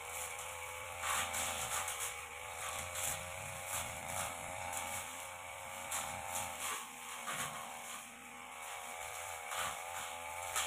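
Backpack brush cutter engine running, its pitch wavering up and down as it is worked, with the long Tanika blade swishing through light grass and brush in repeated sweeps.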